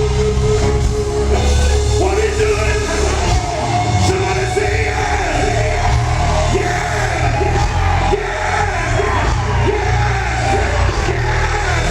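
Live R&B band playing loudly with a heavy bass line, a male lead vocalist singing and shouting over it, heard as an audience recording.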